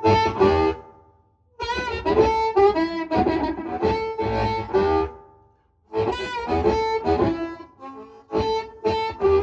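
Blues harmonica played through a chrome shower-head harmonica microphone, in short phrases of held and wavering notes with two brief pauses.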